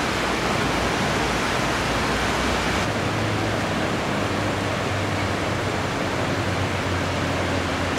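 Steady rain falling, heard as an even hiss with no breaks.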